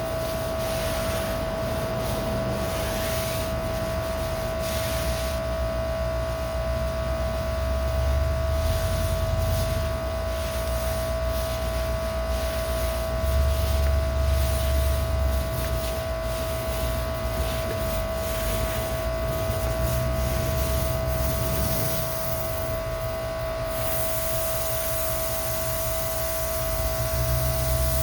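Electric pressure washer running with a steady high whine, driving a Beetroo 15-inch surface cleaner over concrete, with a low rumble and spray hiss that swell and ease several times. The owner finds the electric washer gives the surface cleaner too little pressure.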